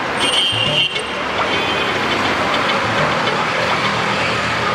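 Steady road traffic noise from a busy street, with a short high tone in the first second.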